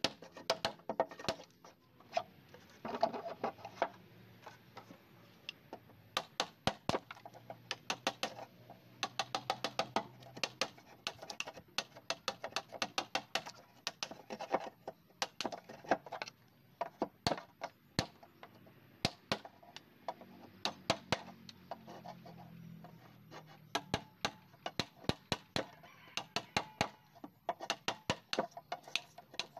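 A wood chisel struck repeatedly, cutting waste from the end of a timber board to form a long tenon: quick runs of sharp knocks, several a second, in bursts with short pauses.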